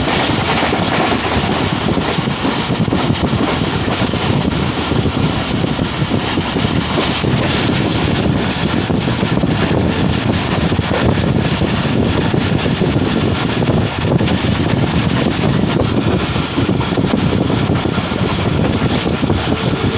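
Passenger train running steadily at speed, heard from on board, with wind buffeting the microphone.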